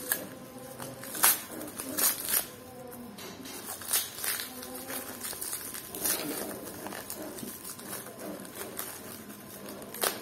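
Sealed plastic wrap around a flexible mini tripod rustling, with sharp crinkles and crackles as fingers pick and tear at it. The wrap is air-tight and hard to tear open.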